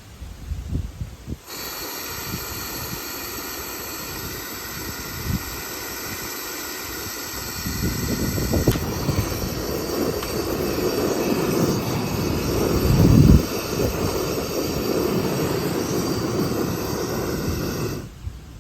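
Gas burners of a Uniflame two-burner camping stove running with a steady hiss, which starts abruptly and turns into a louder, deeper flame noise about eight seconds in, loudest around thirteen seconds, before cutting off abruptly near the end.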